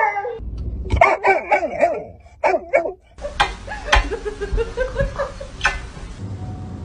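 A yellow Labrador retriever barking and yelping in a quick run of short, pitch-bending calls for about three seconds, followed by quieter sound with a few sharp clicks.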